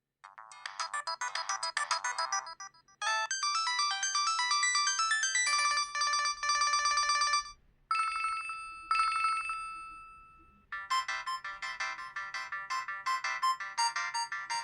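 LG KG800 Chocolate mobile phone playing several of its built-in ringtones and alert tones one after another through its speaker. A fast run of synthesized notes comes first, then a longer melody, two brief chimes that ring out, and another melody starting near the end.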